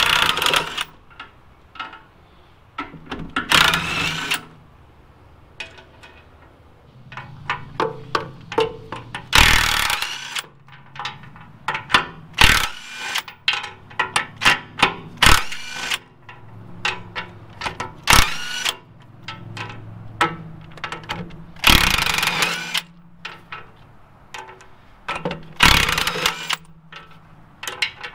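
Cordless impact wrench hammering in short bursts, several times over, as it backs out rusted bolts from a stoker engine's housing. Sharp metal clinks come between the bursts.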